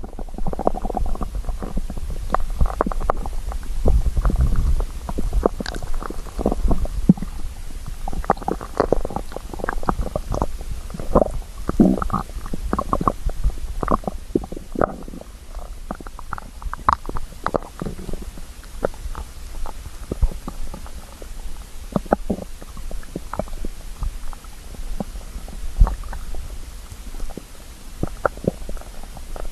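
Human stomach growling from hunger: a long run of irregular gurgles and rumbles, densest in the middle and thinning out toward the end, with a deep rumble about four seconds in.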